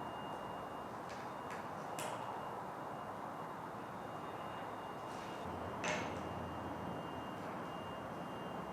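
A few sharp metallic clicks and knocks over a steady hiss with a faint high tone, the loudest knock about six seconds in.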